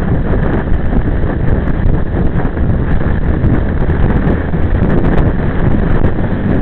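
Wind rushing over the microphone of a camera riding on a moving motorcycle: a loud, steady, low rumble.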